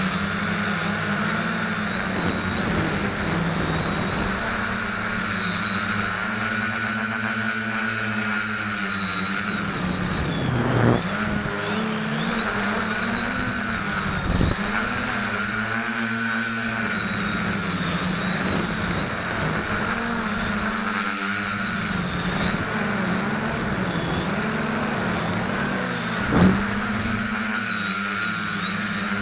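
SK450KK2 quadcopter's brushless motors and propellers whining steadily as it flies, the pitch wavering up and down with throttle, heard close from a camera mounted under the frame. There are three brief louder spikes, about 11, 14 and 26 seconds in.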